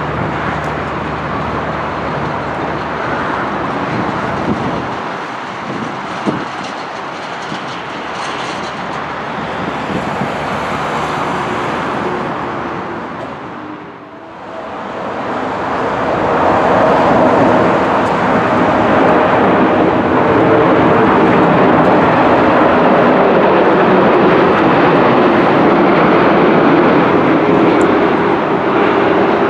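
Jet airliners' engines on landing approach, a continuous loud rumble. It dips sharply about halfway through. In the second half it is louder, with steady humming engine tones, from a Boeing 747-8's four engines on final approach.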